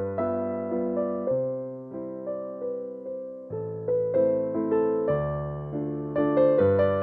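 Background piano music: a slow melody of single struck notes over low held chords, each note ringing and fading.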